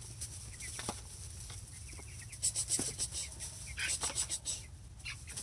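Young Buff Brahma chickens clucking softly among themselves, with short scratchy rustles in the straw, louder around two and a half seconds and again near four seconds in.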